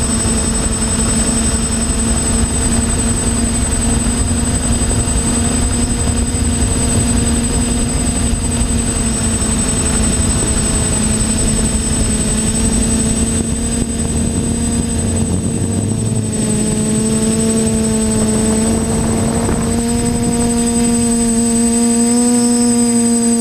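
TBS Discovery quadcopter's electric motors and propellers humming steadily with a thin high whine above, heard from the camera on board, with wind rumble on the microphone that fades about two-thirds through. The pitch wavers near the end as the throttle changes.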